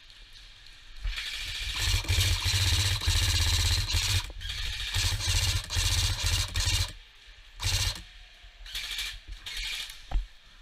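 Airsoft gun firing long full-auto bursts, a rapid mechanical rattle, with a few shorter bursts near the end.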